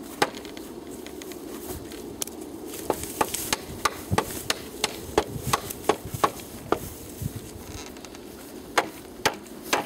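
A small hatchet used as a hammer, knocking on the wooden poles and posts of a pole fence: a string of sharp, irregular knocks, often two or three a second, with a short pause about seven seconds in.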